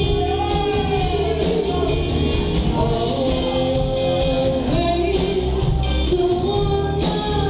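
Irish/Celtic folk band playing live with sung vocals over a full band backing, amplified through a large PA system.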